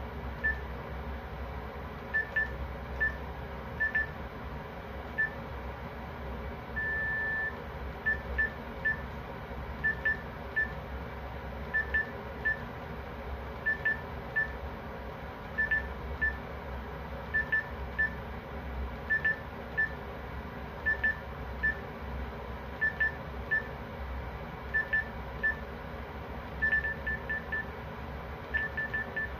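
Electronic alarm beeping at one high pitch in a repeating pattern: two quick beeps then a third, about every two seconds, with one longer beep about seven seconds in. A steady low hum runs underneath.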